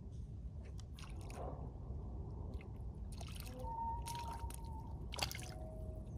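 Small hooked fish splashing at the water's surface on a float-rod line, in several short bursts with the loudest about five seconds in, over steady lapping of shallow water.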